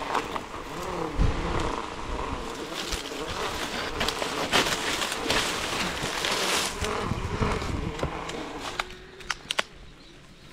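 Dry coconut palm fronds and husk fibre crackling and rustling as they are pushed and handled in the crown of the tree, with a few sharp clicks near the end.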